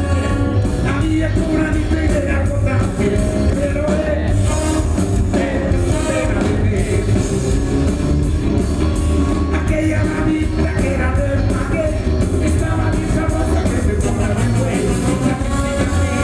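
Live rock and roll band playing loud and steady: electric guitars, drum kit and a horn section, with a singer.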